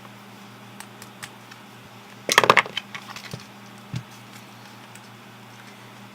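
Small hard plastic parts of a GPS unit being handled on a work surface: a few light clicks, a brief clatter of sharp clicks about two seconds in, and a single knock near four seconds.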